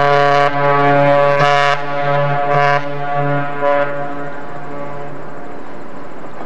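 The Kinsman Enterprise's ship whistle sounding a salute: one long, deep blast is already sounding, breaks up briefly a few times, and dies away about five seconds in.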